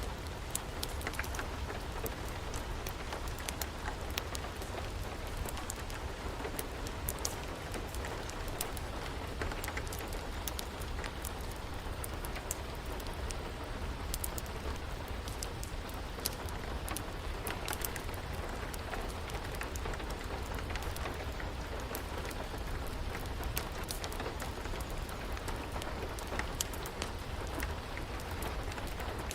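Steady rain mixed with a wood fire crackling, its sharp pops scattered throughout over a constant low rumble.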